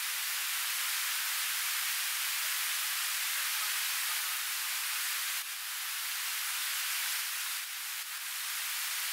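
Steady hiss of battered banana fritters sizzling in hot oil in a wok, blended with the rush of river water.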